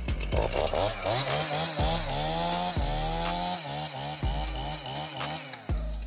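Chainsaw revving up and dropping back again and again while cutting through fallen branches and brush, with one longer high-revving cut about two seconds in.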